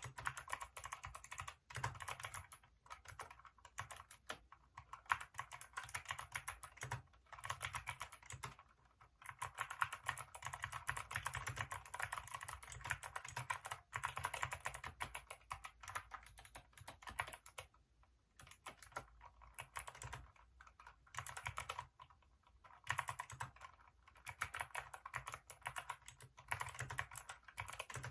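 Typing on a Hacker K611 mechanical keyboard with Kailh optical switches: a fast, continuous run of key clacks broken by a few short pauses.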